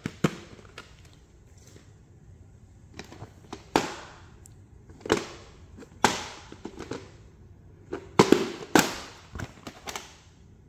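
Plastic VHS cassettes and their cases being handled and set down: about ten sharp clicks and knocks at irregular intervals, the loudest in the second half.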